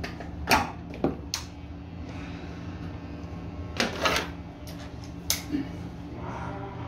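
Irregular sharp clicks and clacks of barber's tools being handled, about seven in all, over a steady low electrical hum.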